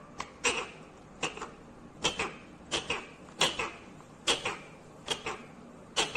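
Ringneck parakeet giving sharp, repeated calls. Each is a quick downward-sweeping note, often in pairs, recurring about every three-quarters of a second.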